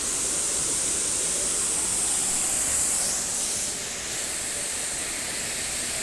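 Heavy rain pouring down in a storm, a steady hiss that swells about three seconds in and eases a little a second later.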